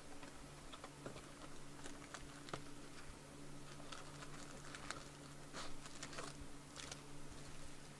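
Faint scattered taps, clicks and rustles of a cardboard trading-card box and its wrapped packs being handled, with a steady low hum underneath.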